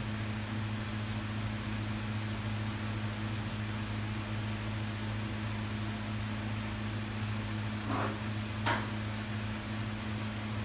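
Steady electrical hum and fan noise from a portable electric cooktop heating a pot, with two brief clicks about eight seconds in.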